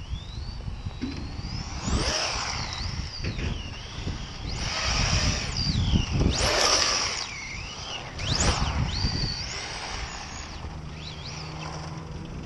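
Losi XXX-S RC car's sensorless brushless motor (a well-worn Reedy 3300kv) whining on 3S, its pitch shooting up and dropping steeply with each burst of throttle, about four times.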